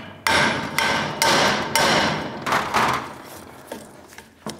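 Mallet blows on the steel body of a 50-ton hydraulic bottle jack: about five hard hits in the first three seconds, each with a short metallic ring. They are knocking loose a stuck seal that has been heated with a torch. A few light knocks follow.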